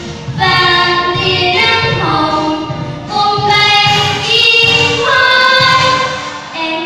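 Two young girls singing a song together into microphones, drawing out several long held notes, over accompaniment music.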